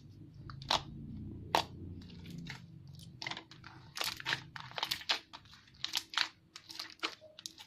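Hands working a homemade clear glue slime, giving irregular sticky clicks and pops.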